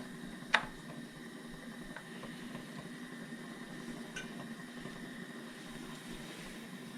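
One sharp plastic click about half a second in and a fainter one around four seconds, from hands working an ignition coil pack loose from its engine bay, over a steady low hum.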